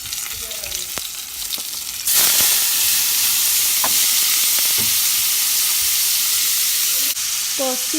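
Food frying in hot olive oil in a pot. About two seconds in, the sizzle jumps suddenly much louder, as chopped onion and red sweet pepper go into the oil. It stays loud and even, then drops back down near the end.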